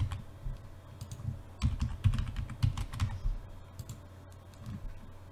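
Typing on a computer keyboard: a short run of keystrokes at the start and a longer, quick run about one and a half seconds in, followed by a few scattered clicks.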